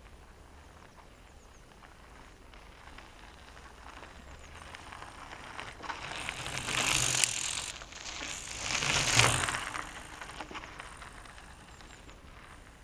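Mountain bike's knobby tyres crunching over a gravel path as the bike rides up close, loudest at two moments about two seconds apart, then fading as it rides away.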